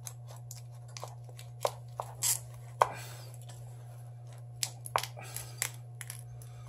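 Irregular sharp cracks and snaps from the cracked front glass and heavy adhesive of a Samsung Galaxy S7 Edge as a tool is forced between the glass and the LCD. The glue resists and needs a lot of pressure. A steady low hum runs under it.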